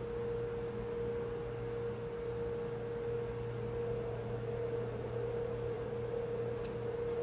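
A steady, unchanging mid-pitched tone, with a fainter low hum beneath it.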